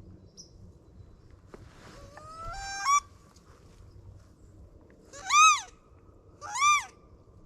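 A reed waterfowl call blown by a hunter. About two seconds in comes a squeal that climbs in pitch in jerky steps, a sign of the reed sticking. Then come two loud honks, each rising and falling in pitch.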